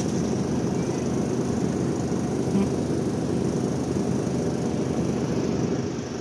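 Steady low rumbling noise with no distinct events, of the kind left by wind on the microphone or a ship's engine and harbour ambience.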